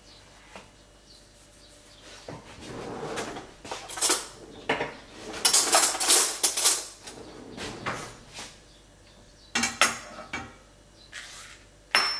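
Kitchen dishes and cutlery clattering off to one side: a series of sharp clinks and knocks in clusters, busiest about four to seven seconds in, with a few more near the end.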